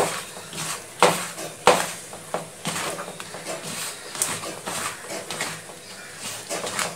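Hand mixing raw peeled prawns with salt and turmeric in a metal bowl: irregular wet squishing with sharp knocks of the prawns and fingers against the bowl, the loudest about a second in and again a little later.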